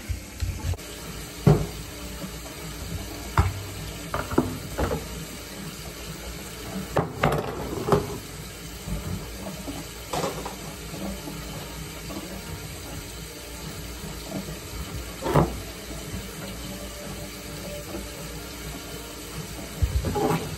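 Potatoes being peeled and handled on a kitchen countertop: a hand vegetable peeler scraping potato skin, and a scattering of separate knocks as potatoes and tools are set down, over a steady background hiss.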